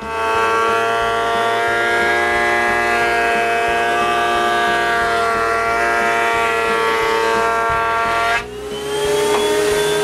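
Jointer cutterhead planing the face of a long African mahogany board: a steady high whine with many overtones. It dips briefly about eight and a half seconds in, then comes back with its pitch rising slightly.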